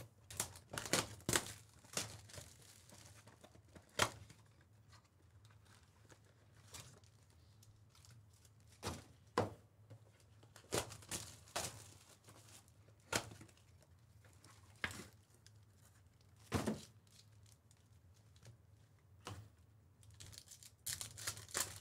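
Cardboard trading-card boxes being torn open and their wrapped card packs pulled out and set down: scattered short tearing and crinkling sounds with light thumps. They come thick in the first couple of seconds and again near the end, with only occasional single rustles between.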